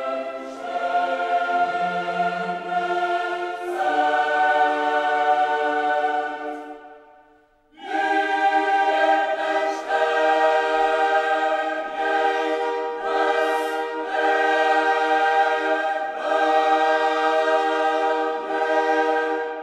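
Background music of a choir singing slow, held chords. It fades away about seven seconds in, starts again a second later, and fades out again at the end.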